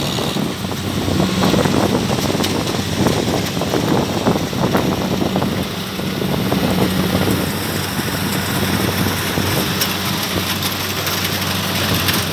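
Diesel engine of a Kubota farm machine running steadily at a constant speed, with a dense mechanical clatter and rushing noise over it.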